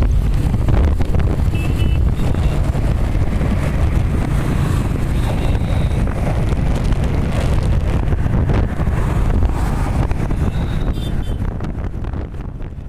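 Heavy wind buffeting on the microphone of a camera moving along on a motorbike, over a steady low rumble of road traffic; it begins to fade near the end.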